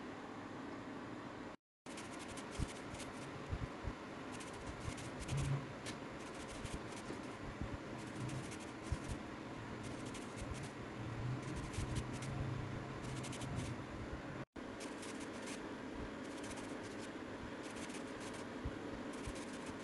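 Soft scattered taps and scratches over a steady hiss as pieces of telur gabus dough (tapioca and egg) are handled and dropped into cold oil in a pan. No sizzling, since the oil is still cold. The sound is broken by two very short gaps of silence.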